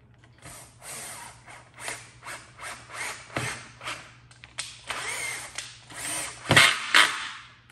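A power drill-driver run in short trigger spurts, driving screws into the wood to fasten a pinball playfield rail. About a dozen brief bursts with a longer run in the middle, and the two loudest near the end.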